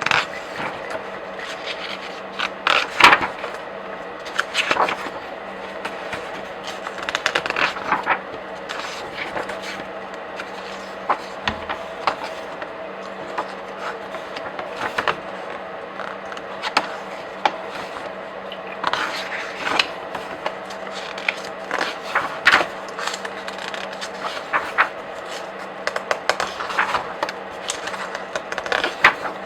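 Comic book and graphic novel pages being flipped by hand: papery swishes and rustles in irregular bursts, often several in quick succession, over a faint steady hum.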